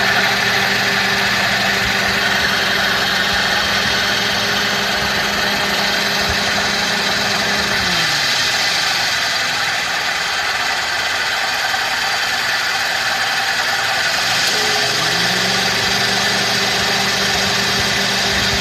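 Toyota Passo running at idle and making an abnormal noise. A steady hum winds down and stops about eight seconds in, then winds back up about fifteen seconds in, under a constant running noise.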